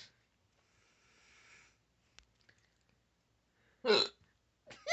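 A person hiccuping once, a short sharp catch of the voice about four seconds in. The rest is quiet apart from faint noise and a small click.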